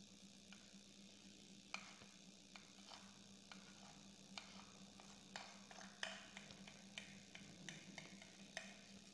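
Faint, irregular clicks and taps of a paintbrush against a paper plate as red and white acrylic paint are mixed, about one a second, over a low steady hum.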